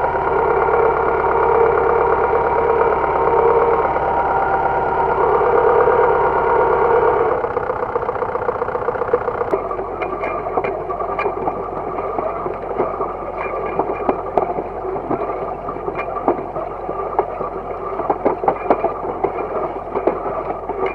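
Universal DT445 tractor's diesel engine running steadily under load while pulling a disc harrow. After about seven seconds the sound changes to the rougher rush and clatter of the harrow's discs cutting through soil and knocking clods, with frequent small knocks over the engine's drone.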